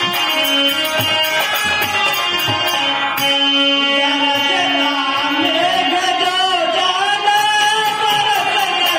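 Live devotional folk music played on harmonium with drum beats; about halfway through a voice starts singing a wavering melody over it.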